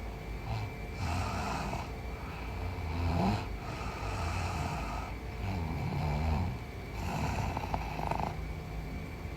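A woman snoring in her sleep, about four snoring breaths a couple of seconds apart.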